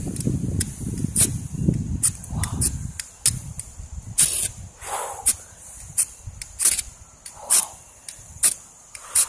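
A steel striker scraped hard down a magnesium fire-starter rod again and again, a short sharp rasp about once a second, striking sparks onto tinder. A low rumbling noise fills the first three seconds.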